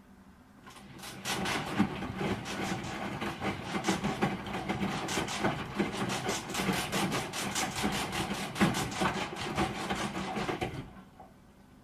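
Broken washing machine running with a rapid, irregular knocking clatter of several strokes a second over a steady hum. The knocking starts about a second in and stops near the end.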